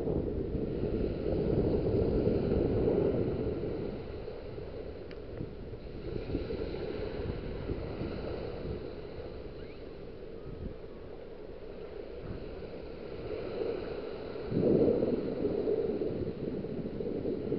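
Small waves washing up a sandy beach, with wind rumbling on the microphone. The wash swells louder about a second in and again near the end.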